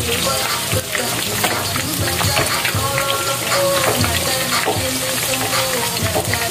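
Battered chicken intestines (isaw) deep-frying in hot oil in a wok: a steady, dense crackling sizzle of bubbling oil.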